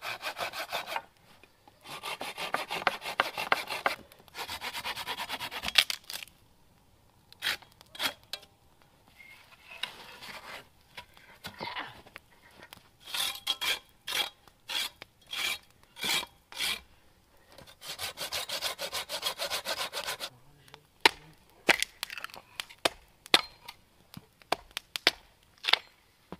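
Hand saw cutting thick dry branches in several bouts of quick back-and-forth strokes. In the last few seconds these give way to a string of sharp hatchet chops into the wood.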